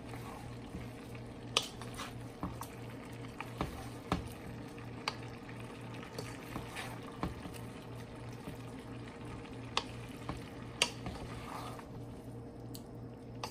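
Wooden spoon stirring chicken and vegetables in a large metal pot, with a steady low simmer underneath and scattered sharp clicks and knocks of the spoon against the pot. A steady low hum runs beneath it all.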